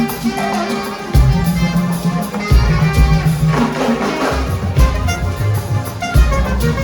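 A Ghanaian gospel-highlife band playing live: a steady drum-kit beat under a bass line and horn and instrument lines, with no singing.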